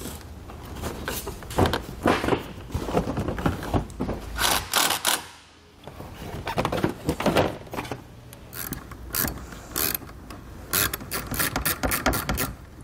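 Hand work on a car's plastic front bumper cover and trim: irregular knocks and clicks of panels and fasteners being fitted, with a run of quick, ratchet-like clicks near the end.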